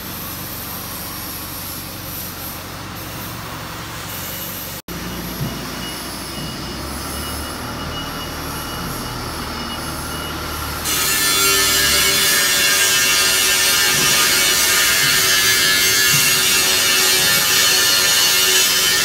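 CNC wood router's spindle running with a steady high whine as its cutter routes a pattern into a board. About eleven seconds in, the cutting noise jumps much louder and stays that way.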